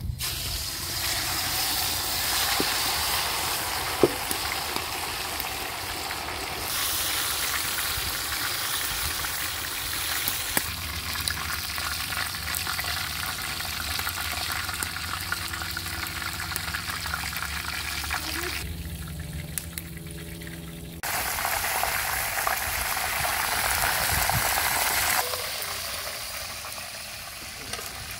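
A whole rack of marinated beef ribs sizzling as it deep-fries in hot oil in a large aluminium pot, a dense steady hiss that starts as the rack goes in. The hiss jumps up and down in level a few times, with a single sharp knock about four seconds in.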